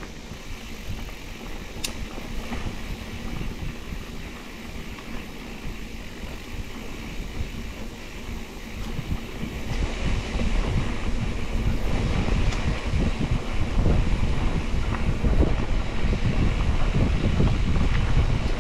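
Wind buffeting the microphone of a handlebar- or helmet-mounted camera on a mountain bike riding a dirt singletrack, over a low rumble of knobby tyres on dirt and a few sharp clicks and rattles from the bike. The rushing grows louder about ten seconds in.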